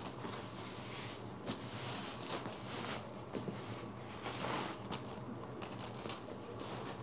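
White plastic protective wrapping rustling and crinkling in several uneven bursts as it is pulled and unwound from a new leather crossbody bag and its strap.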